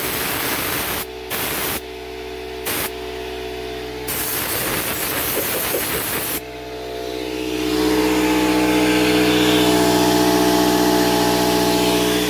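Compressed-air blow gun hissing in three short blasts and a longer one of about two seconds, blowing dust and hair out of a vacuum cleaner. After the blasts, an air compressor runs with a steady hum that grows louder from about halfway.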